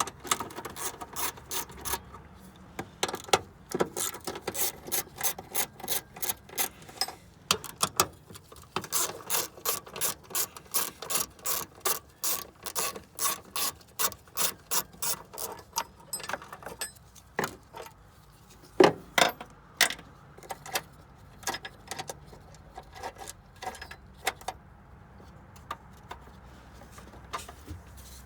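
Hand ratchet wrench clicking in quick strokes, about four clicks a second, as a 12 mm nut is turned. The clicking breaks off briefly a few times and thins to scattered, louder clicks over the last third.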